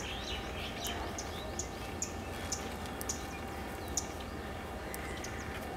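Bird chirping: a run of short, very high chirps, about two a second, over a steady low rumble of background noise.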